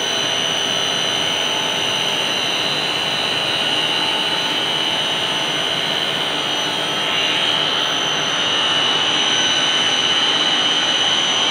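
Makeup water pump running steadily with a high whine, pumping water into a chilled-water line. It gets a little louder about eight seconds in.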